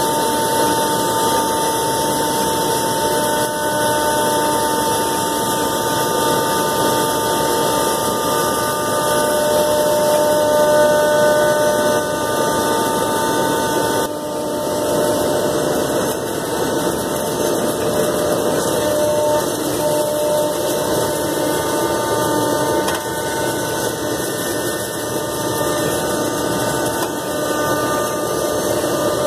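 Komo VR510 Mach 1 CNC router's spindle cutting sheet stock: a steady whine with several held tones over an even cutting noise, dipping slightly about halfway.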